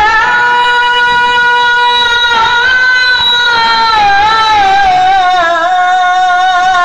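A male qari reciting the Quran in the melodic, sung style through a microphone, holding one long high note. The note is steady at first, then wavers in ornaments and sinks slightly in pitch over the second half.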